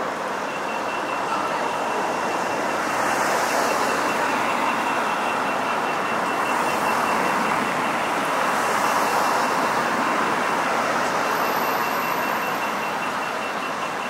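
Steady city traffic noise with a thin, continuous high whine over it, swelling a little now and then.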